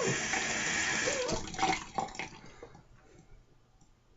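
Water running from a tap into a sink, starting suddenly and lasting about a second and a half, followed by a few light knocks as it dies away.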